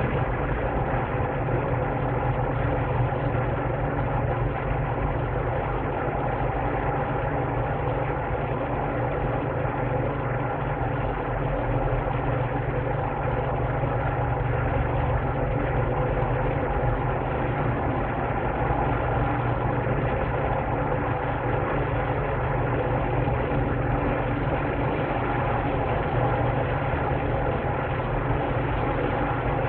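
A steady, unchanging machine hum made of several steady tones, like a motor or engine running.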